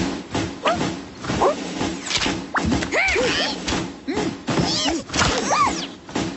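Cartoon sound effects: a few thumps, then a series of short squeaky rise-and-fall wordless vocal noises from the animated characters.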